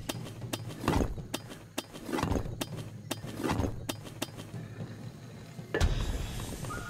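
Online video slot sound effects as the reels are spun several times in quick succession. Each spin ends in a run of sharp clicks as the reels stop one after another, with a low thud under some of the stops.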